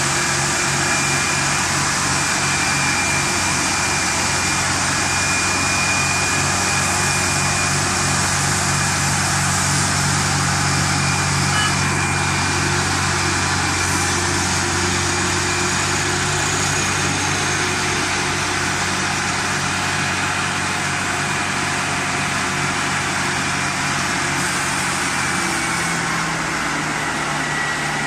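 Luzhong 1004A tractor's diesel engine running steadily at a constant speed while the tractor sits on a roller test bench, with a thin steady whine above the engine note.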